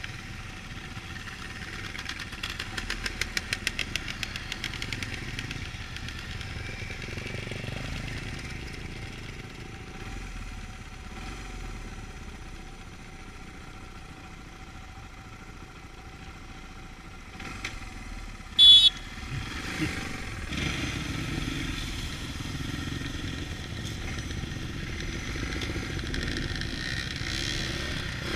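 Dirt bike engines running as a group of trail riders moves off, one bike passing close with a fast pulsing engine note early on. A brief, sharp, loud sound comes a little past halfway, and after it the engine sound grows louder as the bikes get under way.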